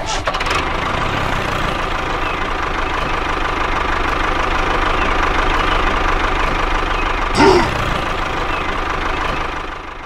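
A motor running steadily with a dense, rapid mechanical clatter, like an engine idling. A short rising-and-falling swoop cuts in about seven and a half seconds in.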